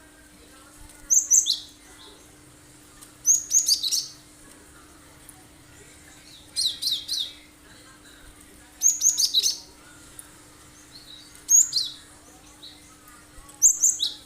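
Cinereous tit (gelatik batu) singing in six short bursts of rapid, sharp, high-pitched notes, about one burst every two seconds: the piercing 'tembakan' song of a bird in full song.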